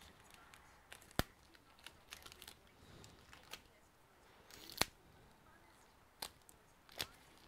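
Nitrile-gloved fingers working a laptop's display cable connector: soft rustling broken by several sharp small clicks, the loudest about a second in and just before five seconds.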